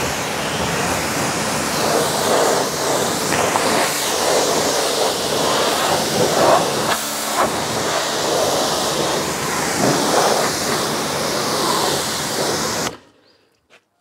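High-pressure water jet from a BTALI 4 HP commercial pressure washer, fired through the green medium-spread nozzle onto a car's body panels and wheel arch: a loud, steady hissing spray that cuts off abruptly about a second before the end.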